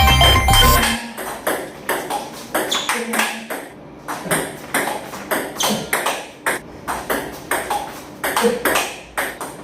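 Table tennis balls being hit and bouncing on the table in quick succession during a multiball drill, making rapid sharp clicks, several a second. A short musical sound effect with a deep bass ends about a second in.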